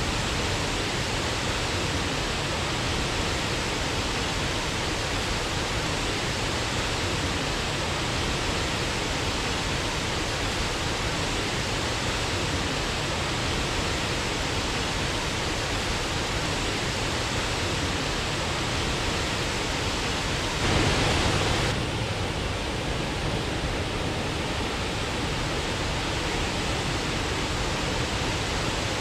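Waterfall rushing, a steady wash of falling water, with a brief louder surge about three quarters of the way through.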